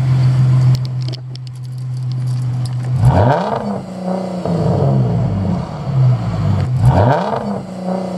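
2010 Ford Mustang with an aftermarket exhaust idling, then revved twice, about three seconds in and again near the end. Each time the engine note climbs and falls back.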